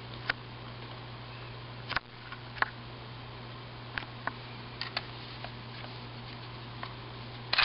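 Scattered short plastic clicks and knocks over a steady low hum, from the opened-up 1986 Ideal StoryMagic Big Bird talking toy's parts being handled and its cassette-unit buttons pressed. The clicks come in a quick cluster near the end.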